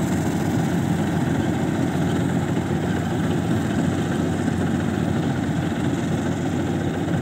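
Rice combine harvester running steadily as it cuts and threshes standing rice, its engine and machinery making an even, unchanging noise.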